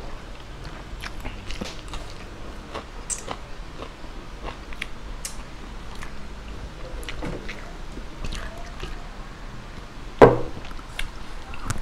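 Close-up chewing and biting of chicken adobo and rice, with wet mouth clicks and smacks scattered throughout. A single sharp thump near the end is the loudest sound.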